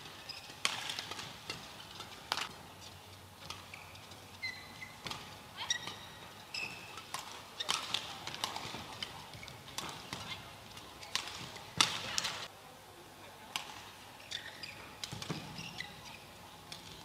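Badminton rallies: sharp cracks of rackets striking the shuttlecock at irregular intervals, the loudest about twelve seconds in, with short high squeaks of court shoes and footfalls between the shots.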